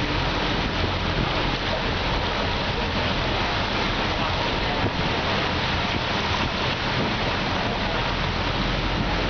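Steady rush and splash of floodwater churned up along the side of a bus driving through a flooded street, with the bus engine's low drone underneath.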